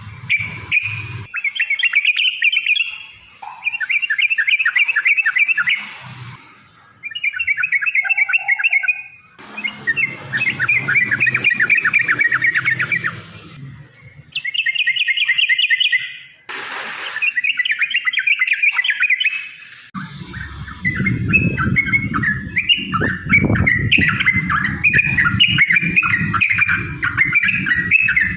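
Yellow-vented bulbul (trucukan) song: bouts of fast, bubbling chattering phrases a few seconds long with short pauses between them. The last third is one unbroken chatter with a low rumble underneath.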